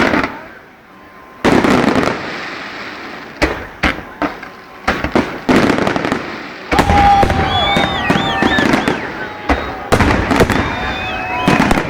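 Aerial fireworks display: a rapid series of loud shell bursts with echoing tails. From about seven seconds in, shrill whistling tones that waver and glide in pitch sound over the bangs.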